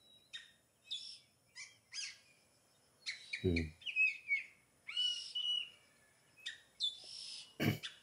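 Oriental magpie-robin (kacer) calling: short, varied chirps and whistled notes in scattered bursts with brief gaps between them. A brief low voice-like sound about halfway through and a sharp click near the end.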